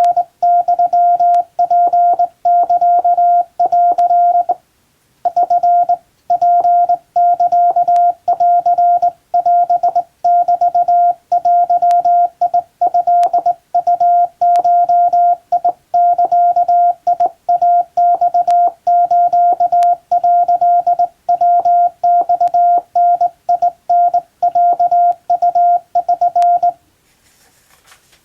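Hand-sent Morse code on a Japan Radio Co. (JRC) telegraph key: a steady single-pitch tone keyed into dots and dashes at an even pace, practice text in Japanese (wabun) Morse. There is a short break about four and a half seconds in, and the sending stops about 27 seconds in.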